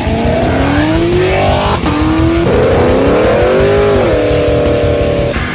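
Car engine revving hard in rising sweeps, dropping in pitch once about two seconds in like a gear change, then holding a steady high note before cutting off near the end, over loud background music.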